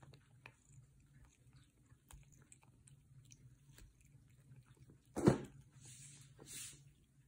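A cat biting and chewing fresh cat grass: a run of small, crisp bites and crunches. About five seconds in there is a single loud thump, followed by two short rustles.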